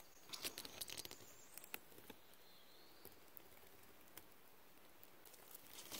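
Near silence, broken by faint rustling and small crackling clicks, most of them in the first second and a few more near the end: dry leaf litter and plants being brushed at close range.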